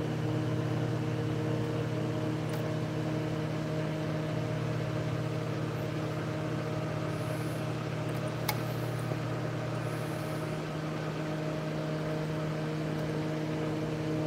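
A steady low machine hum with several fixed tones, and one faint click about eight and a half seconds in.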